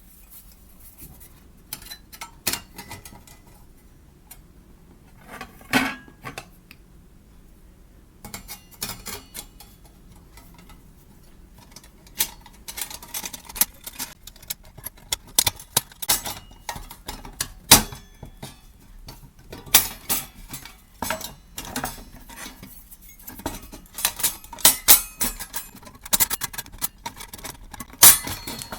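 Metal parts of a small folding stainless steel fire stand clinking and clattering as they are handled and fitted together: scattered clinks at first, then a busier run of clatter from about halfway through.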